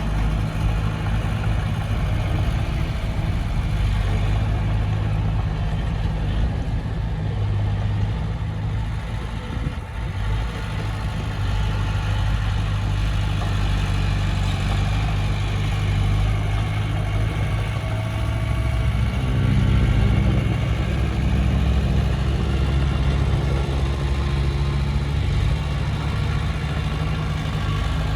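Komatsu D20P bulldozer's diesel engine running steadily while working, its note shifting and growing a little louder about two-thirds of the way through.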